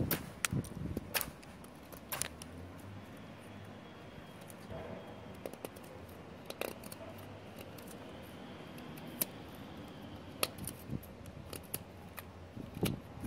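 Stainless steel Jack Pyke Platinum bushcraft knife shaving curls off a stick of wood to make a feather stick: a dozen or so sharp, brief cutting strokes at irregular intervals.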